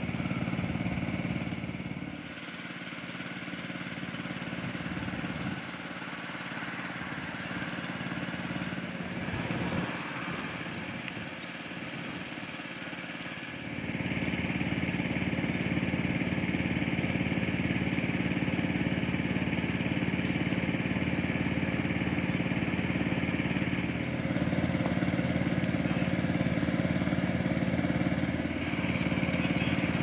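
A motor engine running steadily, as a low even drone. It is quieter for a stretch from about 2 to 14 seconds in, then louder and steady again.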